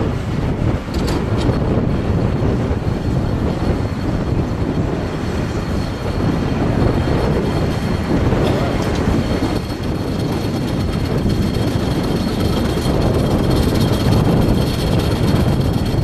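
Tractor pulling a Schuitemaker self-loading forage wagon across a grass field: steady, loud engine and machinery noise, with a faint high whine that comes in about halfway through.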